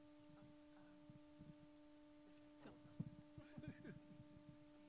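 Near silence: a steady electrical hum from the sound system, with a few faint knocks and rustles in the second half.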